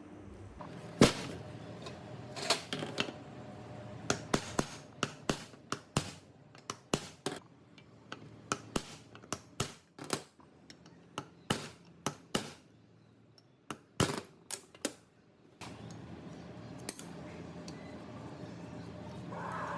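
Tools and machine parts being handled at a workbench: irregular sharp clicks and knocks, sometimes several a second, over a faint low hum. The loudest knock comes about a second in.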